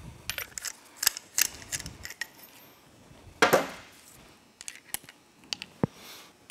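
Spark plugs being loosened and taken out of an engine cylinder head with a ratchet and socket: scattered metal clicks and clinks, with one louder short pitched sound about three and a half seconds in and a dull knock near the end.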